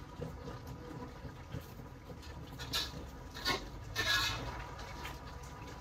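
Spatula stirring and scraping tofu and tempeh in a pan: a few short scrapes about two and a half, three and a half and four seconds in, over a faint steady hum.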